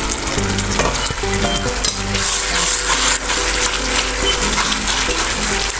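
Chicken pieces with tomato paste sizzling in a hot pan while a metal spatula stirs them, clicking and scraping against the pan. The sizzle grows louder about two seconds in.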